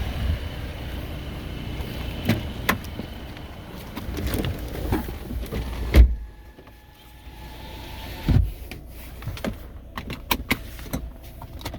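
Car door shut with a heavy thump about six seconds in, after which the sound is quieter. Another thump and a run of sharp clicks and rattles follow, like keys and handling.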